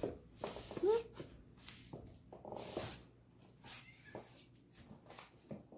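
A kitten mewing once, briefly, about a second in, among scattered soft clicks and rustles.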